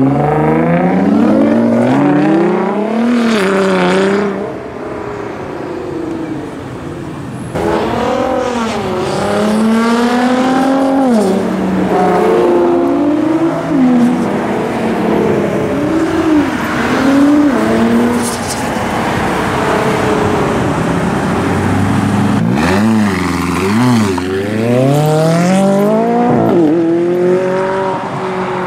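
Sports cars, among them Nissan GT-Rs and a McLaren, pulling away hard one after another. Each engine note climbs in pitch and drops back at the gear changes, with a quieter lull between about four and seven seconds in.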